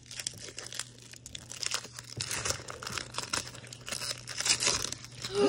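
Foil wrapper of a Pokémon trading-card booster pack being torn open and crinkled in the hands, a steady run of small crackles as the cards are worked out of it.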